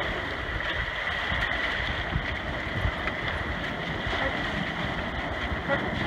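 Sea surf washing and sloshing among large rocks, with wind buffeting the microphone in a constant low rumble.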